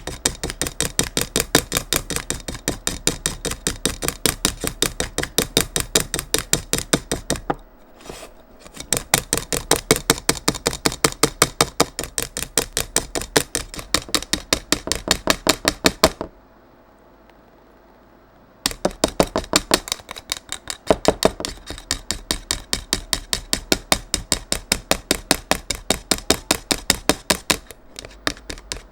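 Dalgona coffee mixture of instant coffee, sugar and hot water being whipped by hand, the utensil clicking rapidly and evenly against the side of the container, several strokes a second, stopping twice for a moment.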